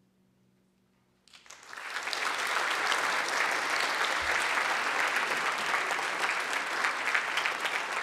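The last of the band's final chord dies away into a second of near silence, then audience applause breaks out and goes on steadily.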